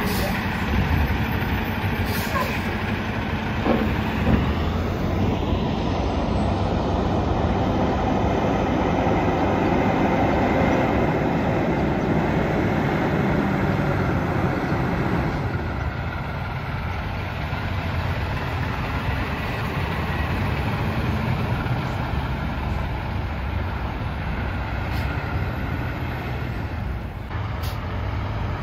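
Diesel semi-trucks passing close by one after another, engines running and tyres on the road, a little louder in the first half and easing off a little after about halfway.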